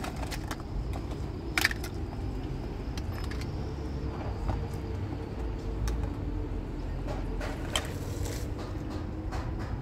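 Plastic toys clicking and clattering as they are picked up and dropped from a pile, with the sharpest clack about one and a half seconds in, over a steady low rumble.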